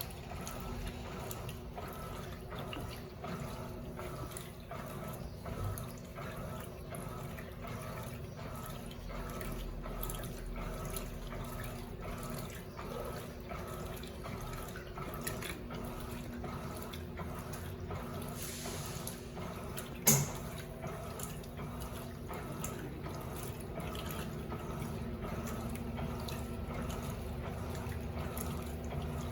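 Electrolux LPE16 washing machine washing a load of microfibre blankets on its duvet cycle: water sloshing in the tub over a steady hum, with a regular beat about twice a second. A single sharp click about twenty seconds in.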